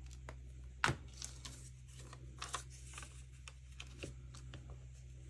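Quiet handling of paper and craft supplies on a desk: scattered light taps and clicks, with one sharper click about a second in, over a steady low hum.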